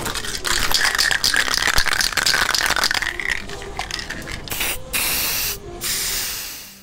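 Aerosol spray-paint can: rapid rattling and clicking, as when the can is shaken, then two blasts of spray about a second each near the end, the second fading out.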